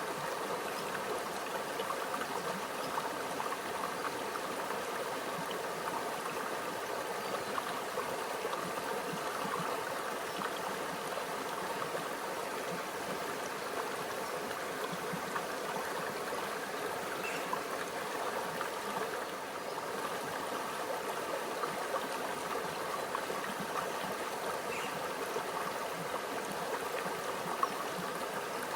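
A small stream of shallow water running over rocks, a steady bubbling trickle with small splashes flickering through it.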